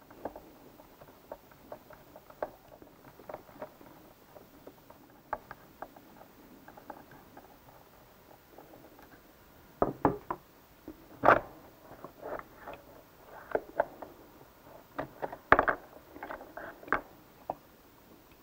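Faint, irregular clicks and ticks of a Torx driver and screws as the drive pulley unit is unbolted from a CVT riding-mower transaxle. From about ten seconds in come louder knocks and clacks of tools and metal parts handled on the bench.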